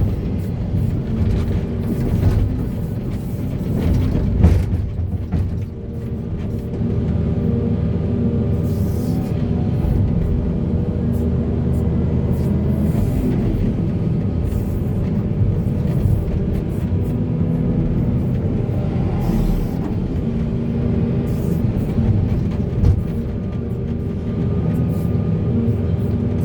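Heavy diesel earthmoving machinery running steadily under load, a deep engine drone with a few short knocks.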